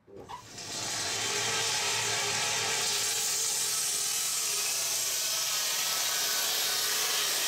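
Woodturning lathe spinning a piece of enju wood while a hand-held hook tool cuts into it: a steady hiss of shavings coming off, starting about half a second in.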